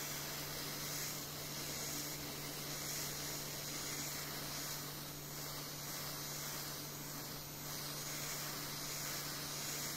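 Hot-air SMD rework station blowing a steady hiss of hot air through its nozzle onto an SSD circuit board, heating the main controller chip at 350 °C to reflow its solder.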